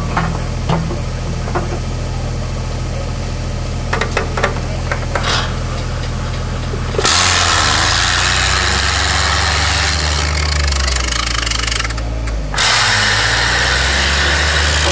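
Compressed-air machine exhausting air: a steady low drone with a few clicks, then about seven seconds in a loud hiss of escaping air starts, breaks off briefly near twelve seconds, and starts again.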